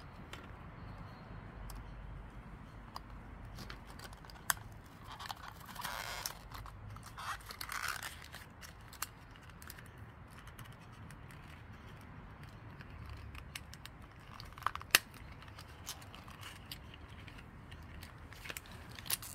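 Packaging of a boxed diecast model car being handled and opened: scattered light clicks and taps, with two longer rustles about six and eight seconds in and a few sharper clicks along the way.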